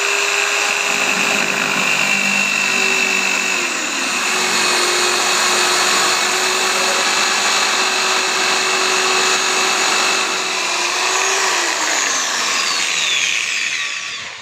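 Handheld electric power tool running at a steady speed for about eleven seconds, its motor giving a steady whine over a rough grinding noise, then winding down with falling pitch near the end.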